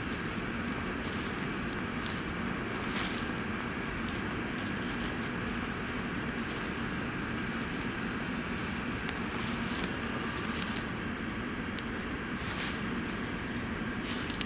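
Footsteps crunching through dry, dead grass, a rustle-and-crackle every second or so, over a steady low background hum.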